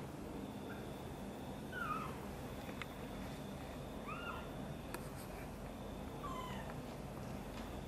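Tiny kitten mewing: three or four short, high-pitched mews about two seconds apart, mostly falling in pitch.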